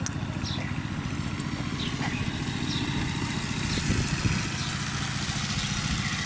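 A small engine running steadily: a low, even drone with a fast pulse in it. A few faint short high chirps sound over it.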